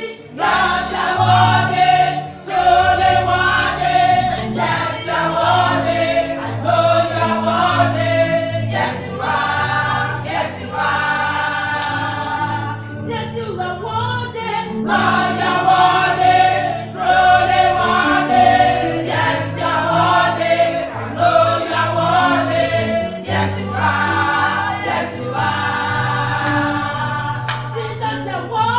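Church choir singing a gospel song, with steady low notes underneath the voices.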